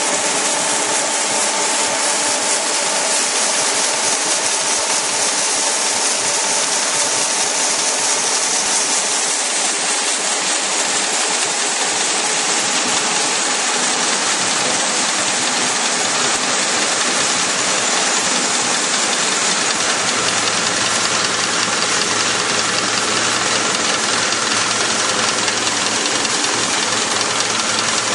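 Rice crust production line machinery running: a steady mechanical din of motors and rollers with a strong hiss over it. A low hum joins about twenty seconds in.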